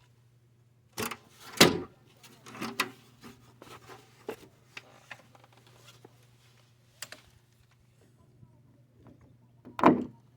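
A scattering of knocks and clicks from handling tools and materials, with a loud knock about a second and a half in and another near the end, over a faint steady hum.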